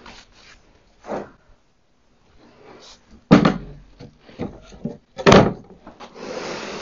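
A small wooden cabinet being turned and shifted by hand on a workbench: several sharp wooden knocks and thumps, the loudest about three and five seconds in, then a short scrape near the end as it slides.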